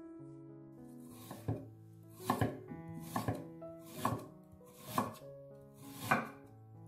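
A kitchen knife slicing through fresh ginger root and hitting a wooden cutting board, about one cut a second, over soft background piano music.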